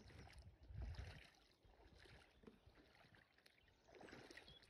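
Near silence: faint outdoor ambience, with a brief low rumble about a second in.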